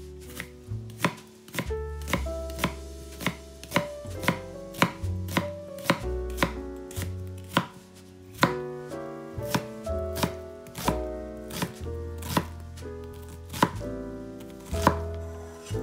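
Kitchen knife chopping vegetables on a cutting board, in sharp strokes about one to two a second with short pauses.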